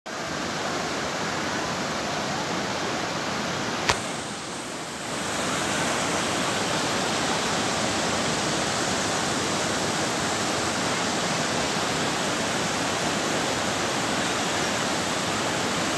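Waterfall rushing: a steady, loud wash of falling water. A sharp click about four seconds in, after which the rush dips briefly and comes back a little louder.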